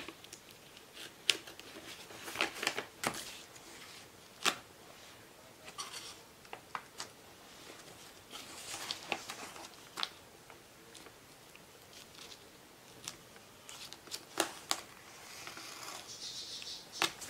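Craft knife scratching and slicing through wrapping paper and clear tape, in short irregular scrapes and sharp clicks with light paper rustling.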